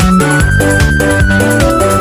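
Background music with a steady beat, a bass line, and a high melody holding long notes.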